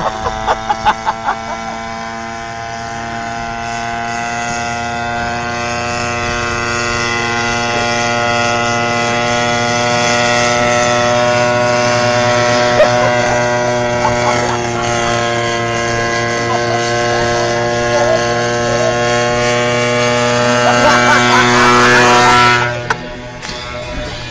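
Small petrol engine of a motorised beer crate running at a steady, unchanging speed, slowly growing louder, then cutting off abruptly near the end.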